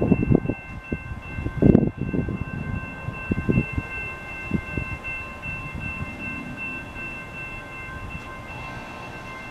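Railroad grade-crossing warning bell ringing steadily in a rapid run of metallic dings, the signal that a train is approaching. Irregular low thumps and rumble sound under it, loudest near the start and just under two seconds in.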